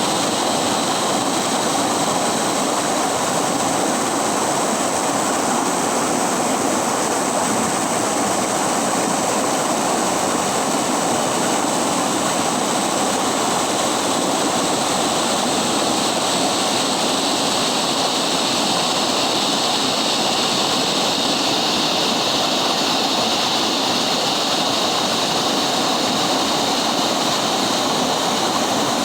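River water rushing steadily, an even, unbroken wash of noise.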